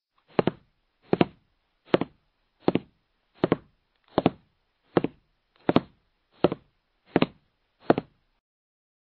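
A steady series of eleven knock-like hits, a little more than one a second, each a quick double stroke, with dead silence between them.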